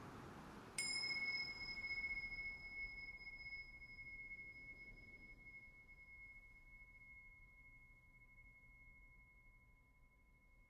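A single struck metal chime or bell rings out about a second in, with several clear high tones that fade slowly while the lowest one hangs on. It rings as part of a quiet ambient music track, over a soft hiss that is dying away.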